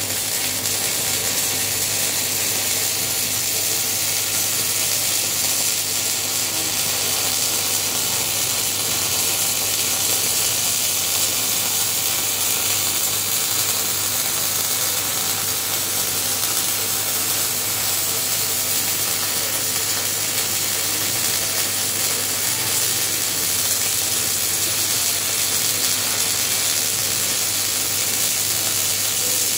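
Electric arc welding running continuously as a seam is laid on a low-carbon-steel job: a steady crackling hiss over a low mains hum.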